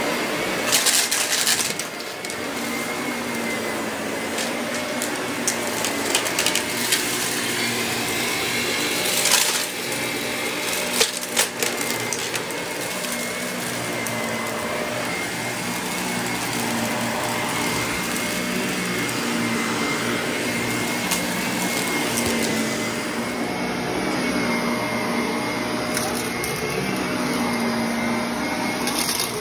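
Shark upright vacuum cleaner running on carpet with its brushroll on: a steady motor whine over a low hum. A few short rattles, about a second in and again around nine and eleven seconds, as debris is sucked up.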